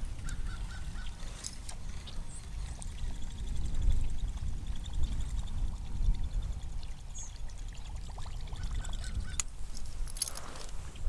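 Wind rumbling on the microphone, with light water sounds and a few faint clicks.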